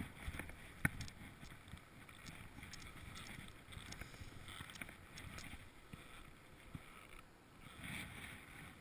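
Snow swishing and crunching steadily under a rider sliding down a snowy slope, with a sharp knock about a second in and a few lighter knocks later.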